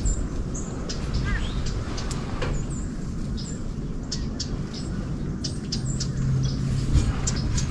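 Birds chirping: many short, high chirps scattered through, over a steady low rumble.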